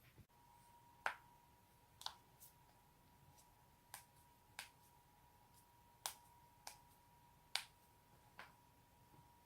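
Human joints being cracked, about nine sharp pops at irregular intervals roughly a second apart, some louder than others, over a faint steady whine.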